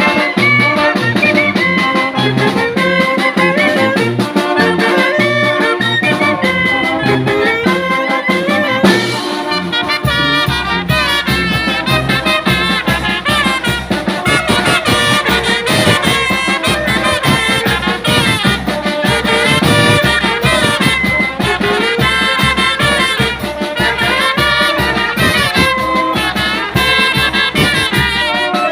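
Mexican banda brass band playing an instrumental piece, with trumpets and trombones carrying the melody. A deep, pulsing bass part comes in strongly about ten seconds in.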